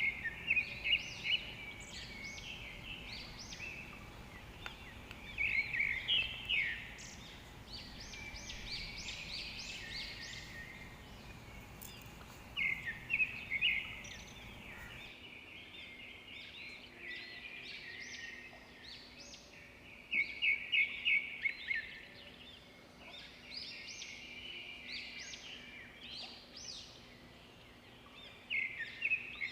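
Small birds chirping, with quick runs of short, high chirps recurring every few seconds over a faint background hiss.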